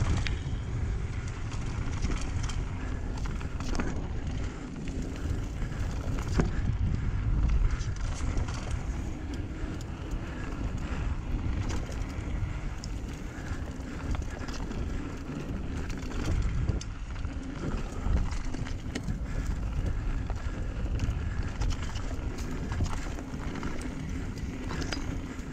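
Mountain bike ridden over rocky dirt singletrack: a steady low rumble of tyres on dirt and stones, with frequent clicks, knocks and rattles from the bike jolting over rocks.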